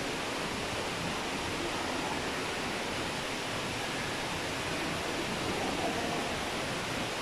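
Steady, even rushing noise that does not change or break.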